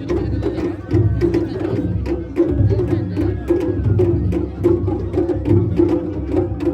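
Japanese festival ohayashi: drums played in a continuous driving rhythm, with sharp tapping strokes throughout.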